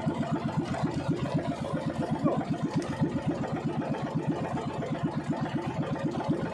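Small engine of a motorised outrigger boat (bangka) running steadily under way, a low, even beat of about eight pulses a second.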